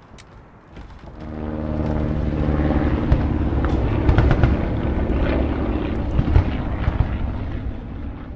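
An engine running steadily in a sound effect, swelling in about a second in, with scattered clicks and cracks over it.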